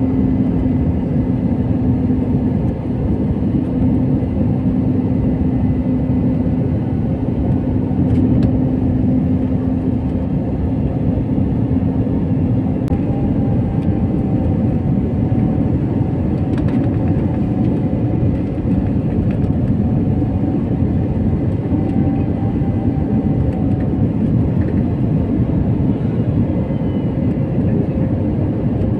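Steady engine and airflow noise inside the cabin of an Airbus jet airliner in flight, its turbofan engines running evenly. A steady humming tone runs under the noise and gives way to a higher tone about halfway through.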